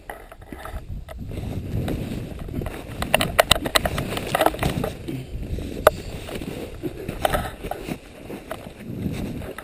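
A person scrambling through an icy stream crossing: boots splashing and crunching through snow and breaking ice, with waterproof jacket rustle and scattered knocks close to the microphone. One sharp click stands out a little before six seconds in.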